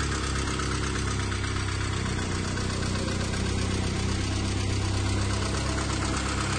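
Saab 900i 16V's 16-valve four-cylinder engine idling steadily, heard with the bonnet open.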